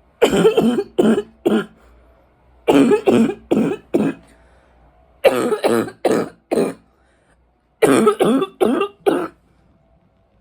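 A woman's deep, barking coughs rattling in the chest, in four fits of three or four coughs each with short pauses between. She puts the coughs down to allergies and smoking.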